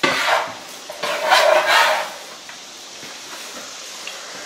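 Chopped Swiss chard scraped off a metal scraper into a hot electric skillet with water in it, sizzling and hissing in two bursts, the louder one about a second in, then settling to a faint steady hiss.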